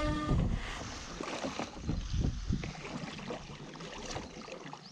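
Kayak paddle blades dipping and splashing in the water as the kayak sets off, with wind rumbling on the microphone. An air horn start signal cuts off just after it begins.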